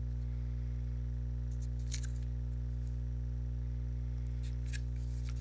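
Clear plastic blister pack crackling as it is handled, in a short cluster of crinkles about two seconds in and another near the end, over a steady low electrical hum.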